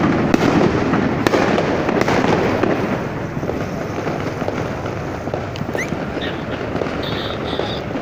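Fireworks going off, a dense rapid crackle of many small pops, loudest in the first couple of seconds and then a lower, steadier crackle as the burst dies away.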